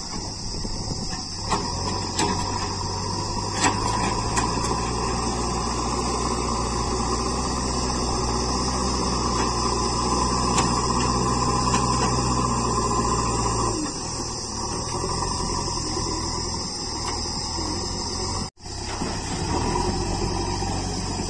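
JCB 3DX backhoe loader's diesel engine running steadily under load as the machine pushes soil, its deep hum easing about two-thirds of the way through. The sound cuts out for an instant near the end.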